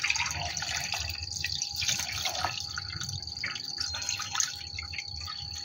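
Water poured in a steady stream from a plastic pitcher into a stainless steel stockpot already holding soy sauce, pork and whole vegetables, splashing as the pot fills.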